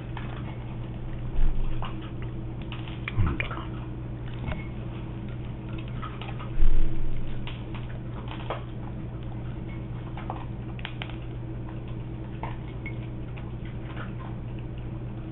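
Shiba Inus eating dry dog kibble from bowls and a toddler's hand: sparse small clicks and crunches of kibble against the bowls, with a few louder knocks, the loudest about seven seconds in. A steady low hum runs underneath.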